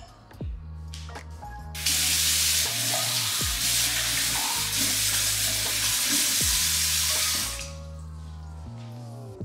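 Kitchen mixer tap running into the sink as glasses are rinsed under it: a loud, even rush of water that starts about two seconds in and stops about two seconds before the end.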